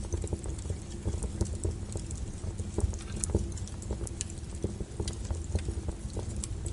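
Wood fire burning, with a steady low rumble of flames and irregular sharp crackles and pops from the burning wood.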